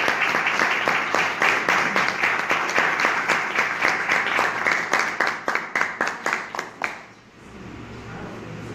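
A small group applauding around a meeting table, the clapping thinning out and stopping about seven seconds in.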